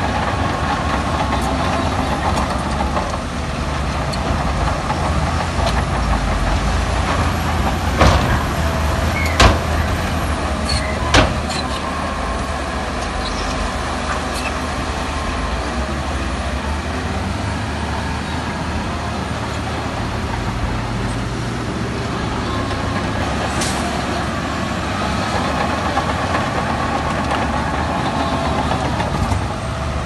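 Heavy diesel earthmoving machinery running steadily under load, with three sharp knocks about a third of the way through.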